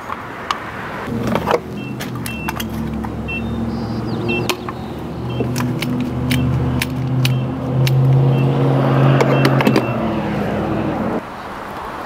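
Fuel pump dispenser humming steadily with an electric motor drone, with short high electronic beeps from the pump and sharp clicks as the nozzle and keypad are handled. The hum cuts off abruptly near the end.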